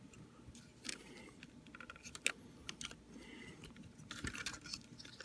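Faint, scattered clicks and scrapes of hard plastic parts of a transforming robot toy, pressed and worked in the hands as a piece is pushed to snap into place.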